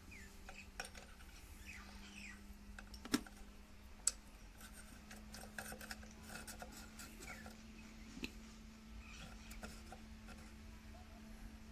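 Light clicks and small metallic taps of tools and sewing machine parts being handled during servicing, scattered irregularly, with two sharper clicks about three and four seconds in, over a faint steady hum.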